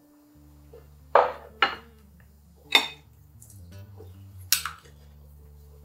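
Kitchen utensils knocking and clinking against a pot and dishes: four sharp clinks spread over a few seconds, the loudest about a second in, over a faint steady low hum.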